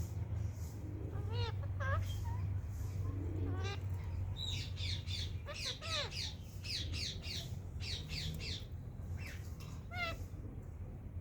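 Parakeet squawking: a few short calls in the first seconds, then a run of rapid, shrill screeches between about four and nine seconds in, and one more call near the end. A steady low hum runs underneath.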